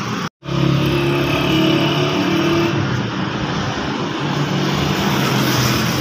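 Street traffic: a motor vehicle engine hums steadily nearby. The audio cuts out completely for a moment near the start.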